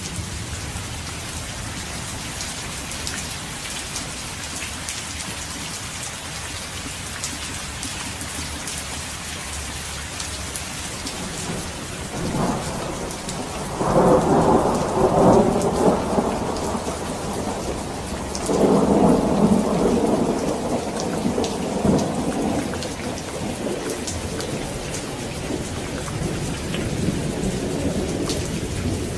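Steady rain with thunder rumbling: two loud rolls of thunder about halfway through and soon after, following a softer rumble.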